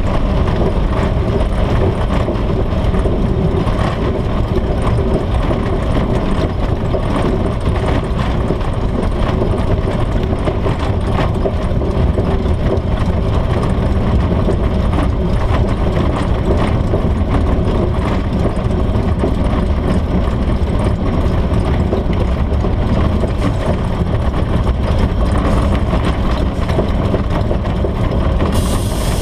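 A Spitfire's Rolls-Royce Merlin V12 engine running steadily on the ground, heard from inside the open cockpit.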